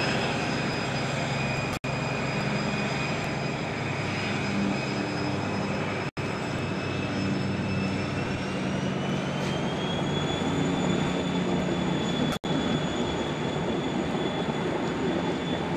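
InterCity 125 (HST) power car's diesel engine working hard as the train pulls away, a low drone under a high turbocharger whine that rises in pitch about ten seconds in. The sound drops out briefly three times.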